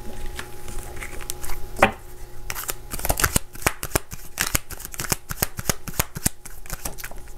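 Tarot deck being shuffled by hand: a few single card taps, then from about two and a half seconds in a quick, dense run of card clicks and flicks that lasts until near the end.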